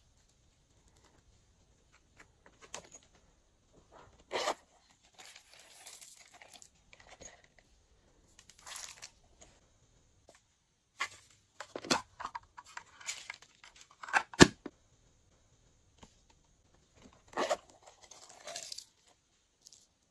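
Glossy slime being stretched, folded and pressed by hand, sounding in irregular bursts with a few sharp pops, the loudest about two-thirds of the way through.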